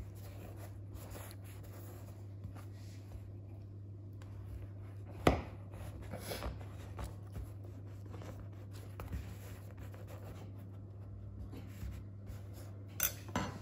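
Soft scattered taps and rubbing of small objects being handled, over a steady low hum, with one sharper knock about five seconds in and two more near the end.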